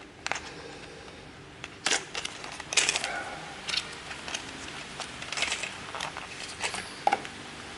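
Small boxes and packaging being handled: scattered clicks, taps and short rustles, the largest a couple of seconds in and again about three seconds in.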